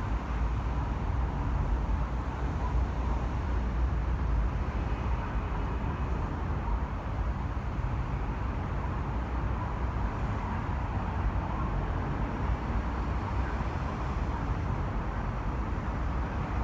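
Steady road traffic noise from dense car traffic on a multi-lane urban expressway: a continuous low rumble of engines and tyres with no single vehicle standing out.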